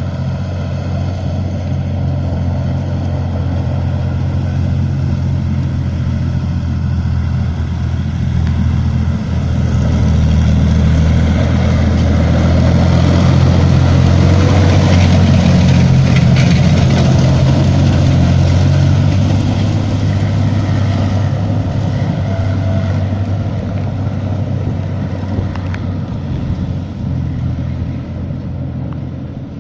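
BMP-1 infantry fighting vehicle's V6 diesel engine running as the tracked vehicle drives through mud, growing louder to a peak in the middle as it passes close, then fading as it drives away.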